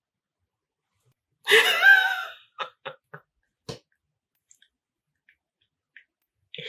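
A woman's loud, short voiced exhale about a second and a half in, followed by four small clicks over the next two seconds; another breath starts near the end.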